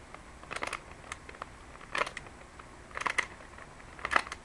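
A LanLan Skewb puzzle being twisted by hand: four short bursts of plastic clicking about a second apart, one for each turn of the algorithm.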